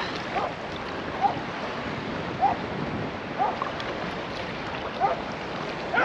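Steady rush of wind on the microphone over shallow sea water lapping, with about five short faint sounds at irregular moments.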